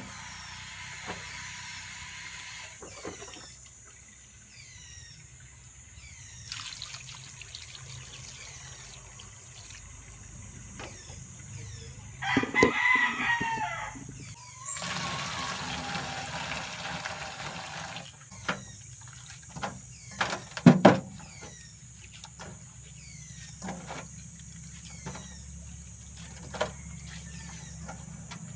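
A rooster crows once, about twelve seconds in, over small birds chirping high and thin throughout. Just after the crow comes a few seconds of hiss as water is poured from a cup into the metal wok, and sharp knocks of handling come now and then, the loudest about twenty-one seconds in.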